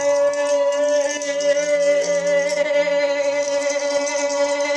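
A single long held note, steady in pitch, with a hiss above it: a music or drone sound effect.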